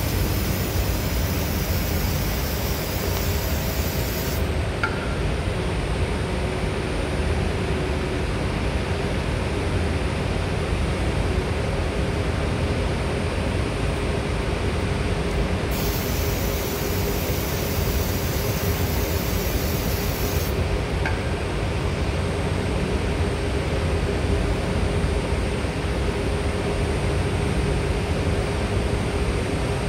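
Steady machinery drone with a constant hum underneath. Twice a hiss of about five seconds joins it, once at the start and once just past the middle.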